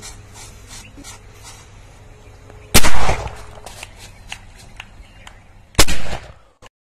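Homemade PVC-pipe carbide cannon fired twice, about three seconds apart. Each shot is a sharp bang with a short ringing tail as the gas from calcium carbide and water is lit by a lighter spark, a cheap bird scarer for crops. Faint clicks come between the shots.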